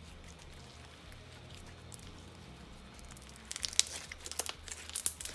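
Slime being squeezed and pulled by hand. It is quiet at first, then from about three and a half seconds in comes a run of crackling, crinkling clicks.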